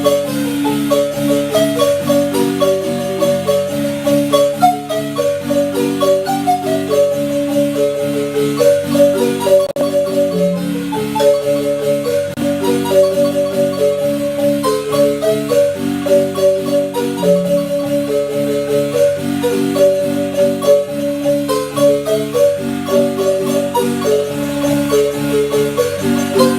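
Marimba music: a quick melody of struck wooden-bar notes over a repeating lower accompaniment of bass and chord notes, playing steadily throughout.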